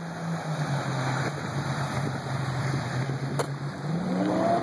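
Yamaha Exciter jet boat's engine running steadily, its pitch easing down slightly about half a second in and then revving up near the end, over a steady hiss of water and wind. A single sharp click about three and a half seconds in.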